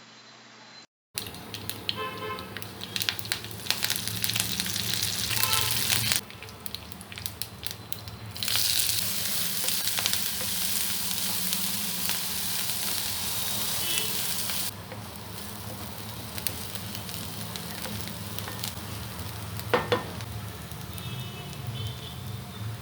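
Hot oil sizzling and crackling in a frying pan. About eight seconds in, the sizzle jumps louder as ingredients go into the oil, and it settles back to a quieter steady sizzle about six seconds later.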